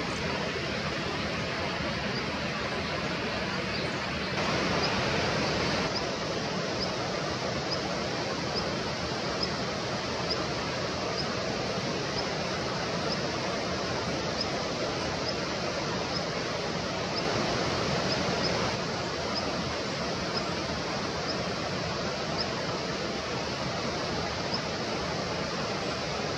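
Steady rushing noise, a little louder twice for a second or two, with faint short high chirps about once a second.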